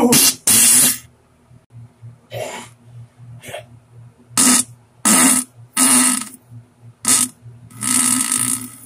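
A run of about nine short, loud diarrhea fart sounds, the last and longest near the end lasting almost a second, over a faint steady low hum.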